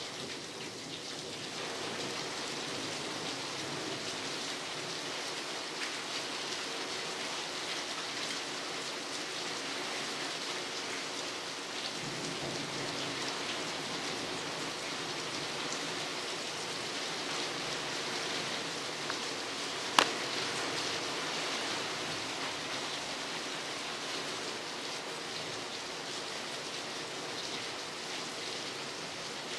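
Steady rain falling during a thunderstorm, an even hiss, with a single sharp click about two-thirds of the way through.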